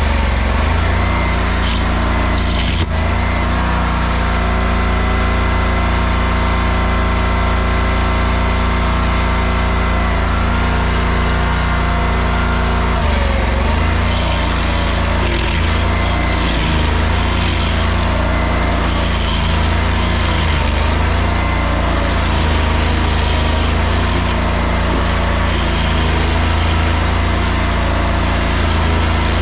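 Stump grinder's engine running hard and steady, with a single knock about three seconds in. Its pitch dips briefly twice, about halfway through and again a few seconds later, as if under load.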